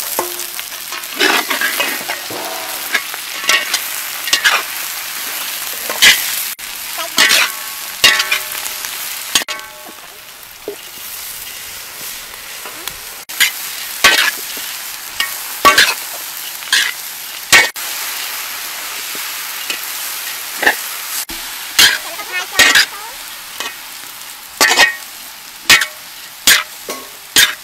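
Noodles, bean sprouts and leafy greens stir-frying in a large wok: steady sizzling, broken by frequent, irregular scrapes and clanks of a metal spatula against the wok.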